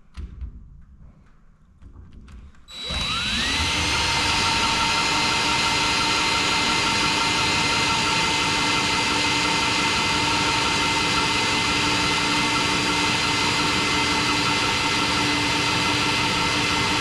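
A power drill starts about three seconds in, its whine rising quickly to full speed, then runs steadily without letting up.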